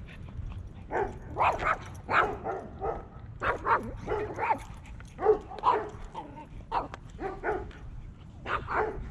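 Yorkshire terrier barking repeatedly, a long string of short barks starting about a second in.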